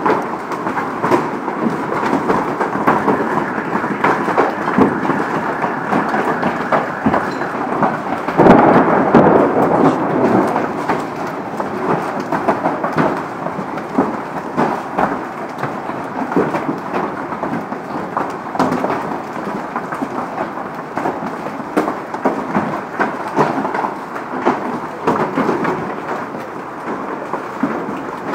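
Heavy hail pelting down on parked cars and pavement: a dense, steady clatter of countless small impacts, swelling louder about eight seconds in.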